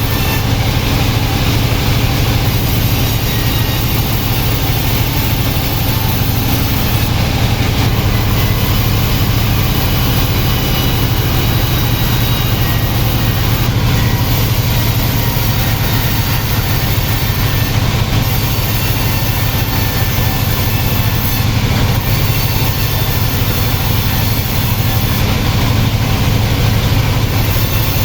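Sawmill machinery running steadily, a loud unchanging low hum.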